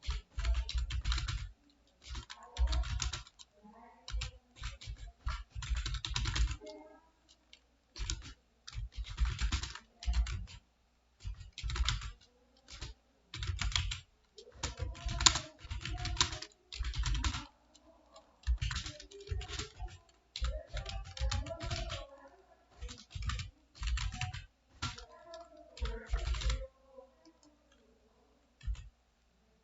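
Computer keyboard being typed on quickly, in runs of rapid key clicks a second or two long with short pauses between, stopping near the end.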